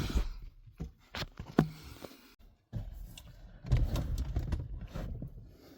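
Front seat being worked free inside a car after its seat sensor is unplugged: a run of sharp clicks and knocks, then a longer rough rustling and scraping nearly four seconds in.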